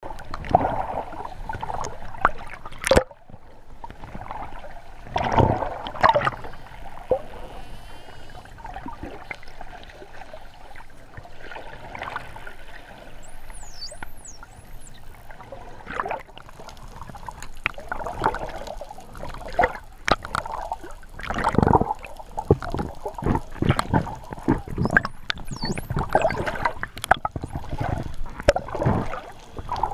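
Wild dolphins heard underwater: high whistles that rise and fall in pitch, the clearest about halfway through and again near the end, among rapid clicks and pulses over a wash of water and bubble noise.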